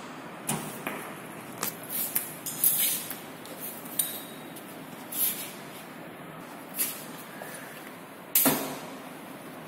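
Scattered knocks and clinks of metal tongs and a crucible being handled at a muffle furnace, with a few short rustles and one louder knock about eight and a half seconds in.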